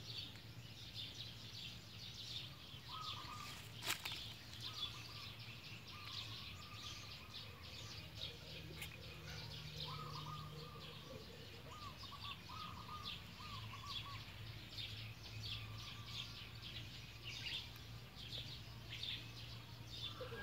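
Faint outdoor ambience of small birds chirping busily and continuously, with a few lower short calls, over a steady low hum. A single sharp click about four seconds in.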